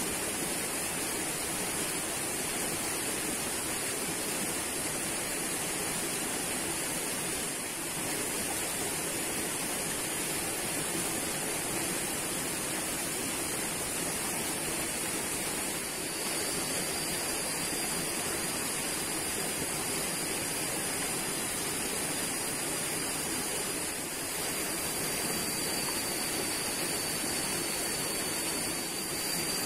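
Steady rush of flowing stream water with a constant high hiss above it; a thin, steady high whine joins about halfway through.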